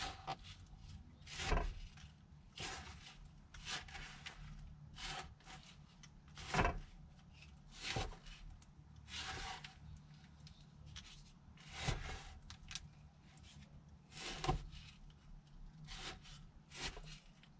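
Short scraping strokes, irregular, about one every one to two seconds, over a low steady hum. This fits a wooden spoon working over a baking sheet of baked granola.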